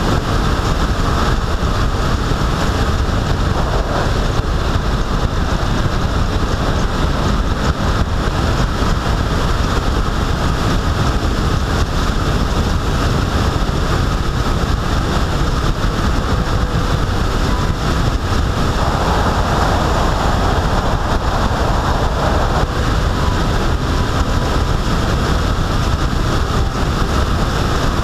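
Steady rush of wind on the microphone mixed with road and tyre noise from a vehicle moving at speed, with a stronger hiss for a few seconds about two-thirds of the way in.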